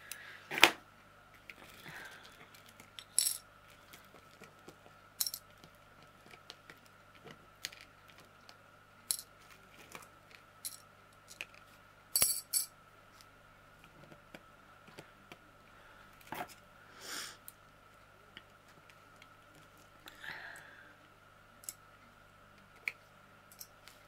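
Sporadic light clicks and clinks of large crystal diamond painting drills being picked up, moved and dropped by hand. The sharpest click comes about half a second in, and a quick pair comes near twelve seconds.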